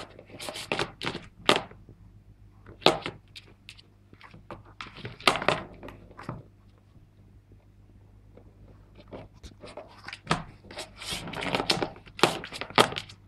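A Bengal cat clawing and pawing at a corrugated cardboard scratch pad set in a plastic ball-track toy: sharp scratching strokes in quick clusters with thumps, with a quieter stretch in the middle.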